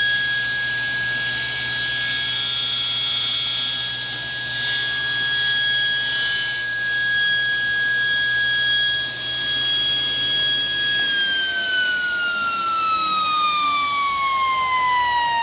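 SawStop table saw running with a steady whine and a low motor hum; about eleven seconds in it is switched off, the hum stops and the whine falls steadily in pitch as the blade coasts down.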